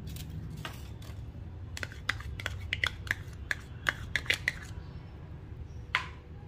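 Spoon tapping and scraping against a plastic cup to get thick curd out, a quick run of light clicks for a few seconds and one more click near the end, over a low steady hum.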